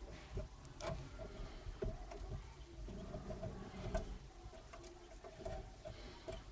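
Newly hatched quail chick struggling and kicking on a plastic incubator tray: faint scuffs and several sharp taps, over a steady low hum.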